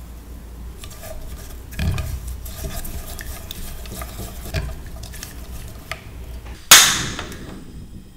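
Silicone spatula stirring cream, honey and sugar in an enamel saucepan, scraping with a few light knocks against the pan. About two-thirds of the way in, a sudden loud click and rush as a portable gas stove is lit, fading to a hiss.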